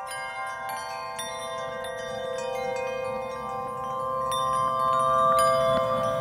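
Chimes ringing: bright metallic notes struck every half second or so, each ringing on over the others, growing louder in the second half.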